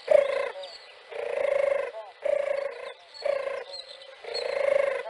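European turtle dove purring: a series of rolling, grainy notes, about one a second, with one longer drawn-out note among them.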